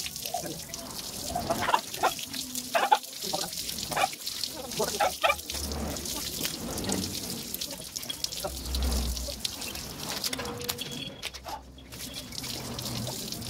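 Water from a garden hose spraying over a wet dog and splashing onto wooden table slats, a steady hiss with scattered splashes. The spray cuts out briefly near the end.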